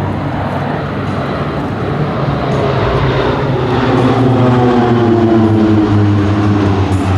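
Embraer EMB 312 Tucano turboprop aircraft passing by, propellers and engines growing louder toward the middle, with the pitch falling as they go past.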